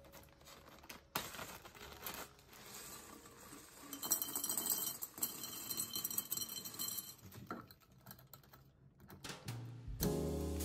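Plastic zip-lock bag crinkling as it is handled and opened, then salted pistachios in their shells pouring into a glass jar, a dense clatter of shells on glass for about three seconds. Music comes in near the end.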